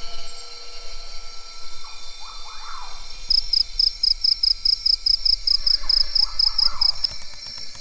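Cricket chirping: a quick, even run of short high pulses, about four or five a second, starting about three seconds in and stopping near the end, over a steady background of night insect hum.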